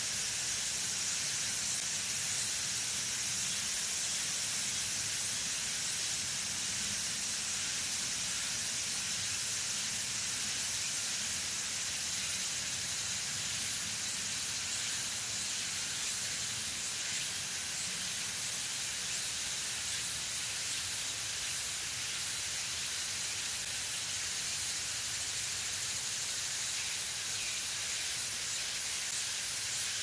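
Steady forest ambience: an even, high-pitched hiss with no distinct calls or knocks, over a faint low rumble.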